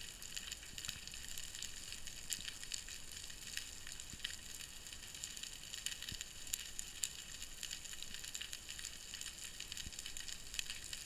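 Underwater ambience: a dense, steady crackle of many small high clicks and pops, with scattered sharper clicks standing out.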